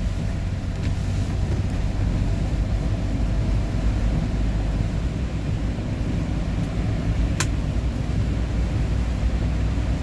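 Steady low rumble of road and engine noise inside a moving vehicle, with a single sharp click about seven seconds in.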